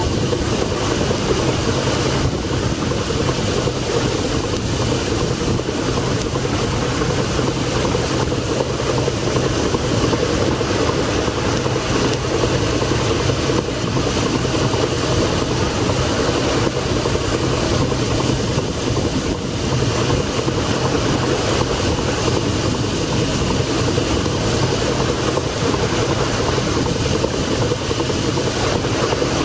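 1902 Toledo steam carriage engine running steadily in a steam launch, a fast even beat blurred into a continuous chugging over a steady hiss, with no change in speed.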